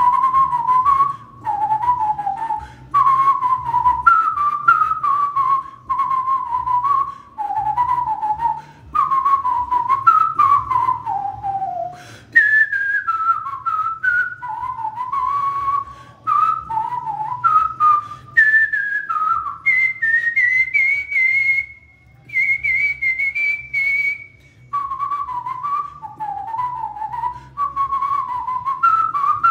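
A person whistling a fast pop-song melody by mouth: a single clear line of short, quick notes that climbs about twenty seconds in to longer high held notes before dropping back.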